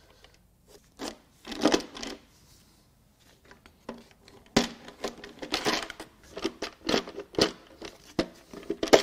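Plastic valve cover on a Ford 2.7 L EcoBoost V6 being worked loose by hand and lifted off the cylinder head. It gives irregular scrapes, creaks and clicks, sparse at first and coming thick and fast from about four seconds in.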